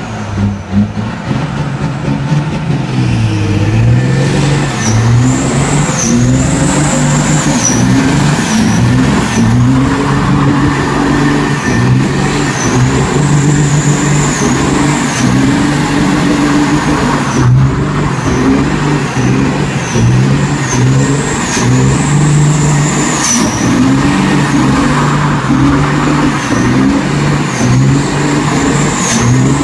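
Custom semi-truck's diesel engine revving hard again and again during a burnout, its pitch rising and falling, with the spinning rear tyres squealing in a high note that dips and returns. It builds up over the first few seconds, then stays loud.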